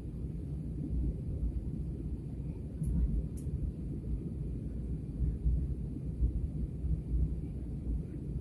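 Airplane cabin noise: a steady low rumble from the aircraft, with no distinct events.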